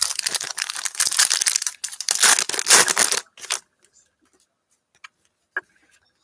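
A 2018 Panini Prizm foil card pack being torn open and its wrapper crinkled: a rough tearing and crinkling for about three seconds, then a few light rustles and clicks.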